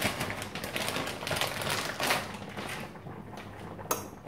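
Frozen diced peppers being stirred into tomato sauce in a stainless steel saucepan with a spatula: a dense run of scraping and clattering, then a single sharp knock near the end.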